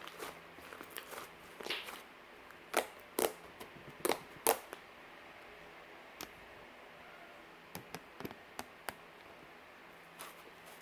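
Irregular small clicks and rustles, a cluster of louder ones in the first half and only scattered ticks after that.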